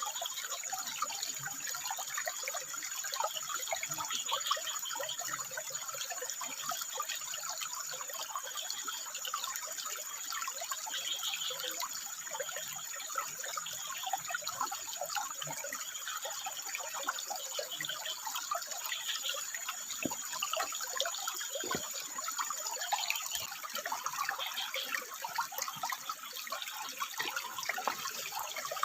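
Water running and splashing steadily over rock, with a thin, high, steady tone above it that stops a few seconds before the end.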